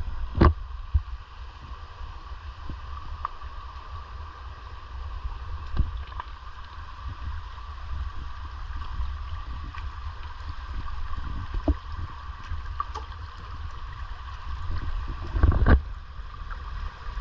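A shallow creek running and babbling steadily, under a constant low rumble on the microphone. A few short thumps sound about six seconds in, near twelve seconds, and a louder pair near the end.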